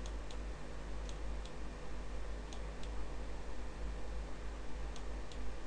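A few scattered clicks from a computer mouse or keyboard, single or in quick pairs, over a steady low hum and faint hiss.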